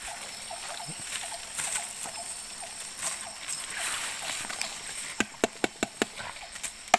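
Fishing net being handled on a stony riverbank: a steady high hiss of the surroundings, then from about five seconds in a quick run of sharp clicks and knocks, about four a second, as the net and its weights are shifted over the stones.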